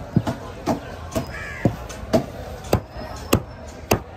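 Heavy cleaver chopping through a grouper onto a wooden board: about eight even, sharp chops, roughly two a second. A crow caws once about a second and a half in.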